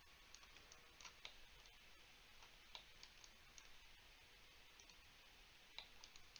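Near silence, with faint computer mouse clicks at irregular moments.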